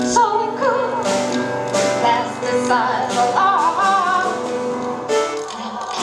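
Live piano music with a woman singing a slow melody with wavering vibrato over sustained chords.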